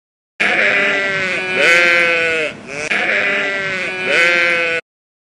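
A sheep bleating twice: two long bleats of about two seconds each, the second a near copy of the first.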